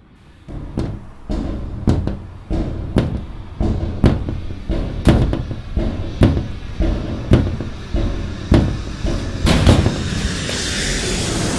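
Film soundtrack: heavy percussive hits about twice a second over a low rumbling drone. Near the end the hits give way to a sustained rising swell.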